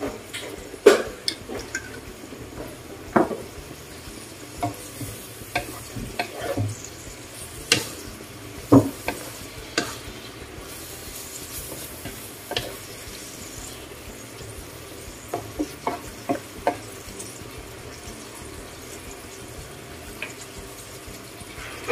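String beans and pork frying in a wok with oyster sauce, a steady sizzle with scattered clicks and knocks from utensils against the pan. Near the end a wooden spatula stirs the wok.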